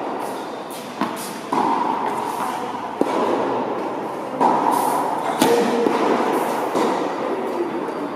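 Tennis ball struck by rackets and bouncing on a hard court during a rally: about five sharp pops over eight seconds, each with a ringing echo from a large indoor hall.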